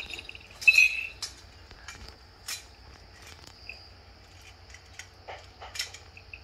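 Light clicks and clinks of a hairpipe necklace as it is lifted and put on over the head, with a brief high squeak about a second in.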